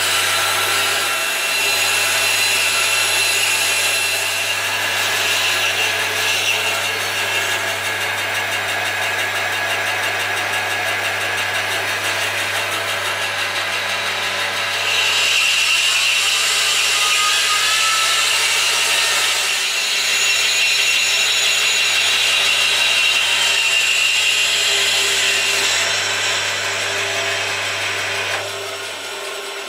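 Band saw running with a steady motor hum while its blade cuts into a solid wooden block that is turned against it to saw a cone. The cutting grows louder about halfway through and dies away near the end as the block comes off the blade.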